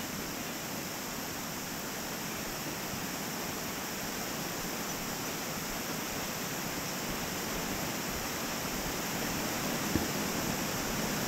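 Steady rush of water from a partly frozen creek and waterfall, slowly growing louder, with one soft thump near the end.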